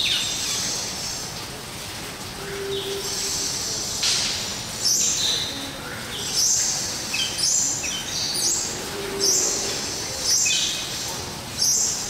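Assorted aviary birds calling: high, thin calls that sweep down in pitch, sparse at first and coming thick and fast from about four seconds in, with a brief low note twice.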